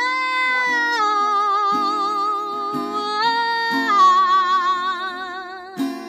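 A woman singing long held notes that shift between a few pitches, over a strummed acoustic guitar.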